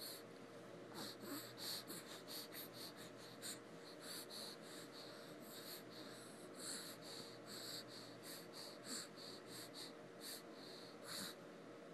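A baby's quick, soft breathing: short breathy puffs, two or three a second, over a faint steady hum.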